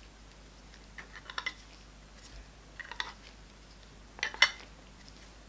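Plastic Petri dish lids clicking and tapping as they are picked up and set onto the dishes, in three short clusters of clicks, the loudest about four seconds in.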